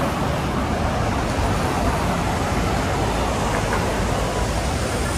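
Steady street traffic noise: a continuous wash of vehicles running past, with no single event standing out.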